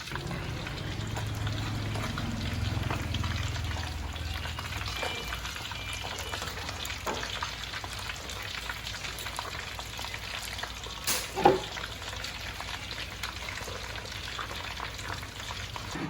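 Hot oil sizzling steadily as a whole elephant ear fish deep-fries, with one sharp knock about eleven and a half seconds in.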